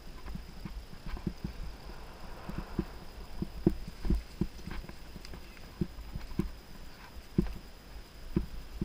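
A 2018 Giant Anthem Advanced 1 full-suspension mountain bike being ridden along a dirt singletrack: irregular knocks and rattles as it rolls over bumps in the trail, over a low rumble.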